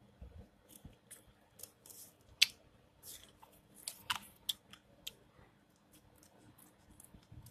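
Scissors snipping through folded newspaper: a run of irregular short cuts, the sharpest about two and a half seconds in and a cluster around four seconds in.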